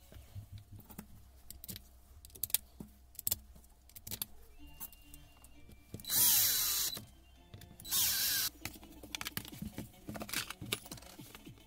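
Cordless drill-driver running in two short spurts, about six and eight seconds in, driving screws into the aluminium gearbox housing of a Hilti TE 500 breaker. Light clicks and knocks of parts being handled come before and after.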